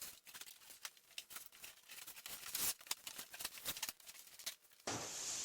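Handling noise: a quick, irregular run of small clicks and rustles. Near the end it gives way suddenly to a steady hiss.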